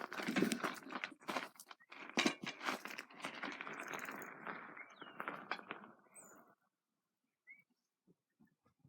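Close handling noise from a camera being set up: irregular clicks and knocks with rustling and crunching. It stops about six and a half seconds in, leaving near silence with a few faint ticks.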